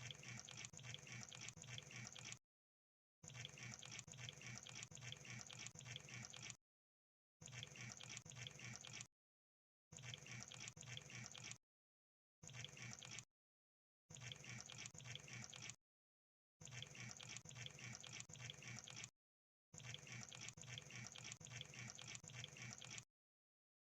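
Crab making rapid, wet clicking and crackling sounds, about eight faint bursts of one to three seconds each, separated by short silent gaps.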